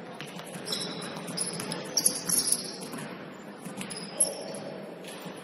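Basketball shoes squeaking on a gym floor during play: a run of short high-pitched squeaks, densest in the first half and again about four seconds in, with a few sharp knocks around two seconds in, over the steady background noise of the gym.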